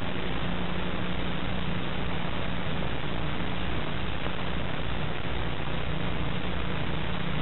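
Steady hiss with a low, even hum underneath: the noise floor of an old black-and-white television film soundtrack, with no other sound.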